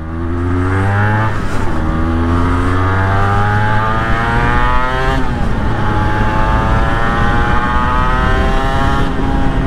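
Honda NSR250R two-stroke V-twin accelerating hard through the gears, its note climbing in each gear and dropping back at each upshift, clearest about five and nine seconds in.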